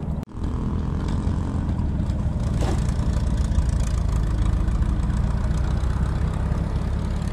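Engine of a Toyota LiteAce minivan running steadily as a low drone, with a brief break about a quarter second in.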